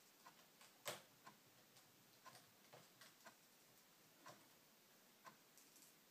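Faint, irregular small clicks of a small screwdriver turning out a laptop's hard-drive-bay screws, with one louder click about a second in.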